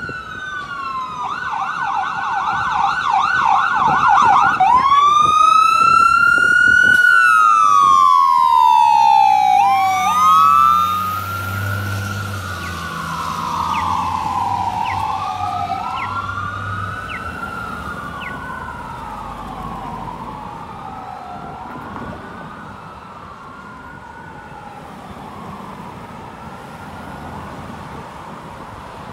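Fire engine's electronic siren: a fast warbling yelp about a second in, then a slow rising-and-falling wail. A low rumble comes in as the truck passes about ten seconds in, and the siren fades as the truck drives away.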